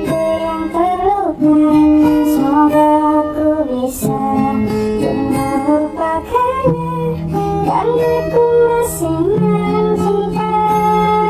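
Music: a pop-rock song with plucked and strummed guitar and a melody line that bends in pitch over a full, steady backing.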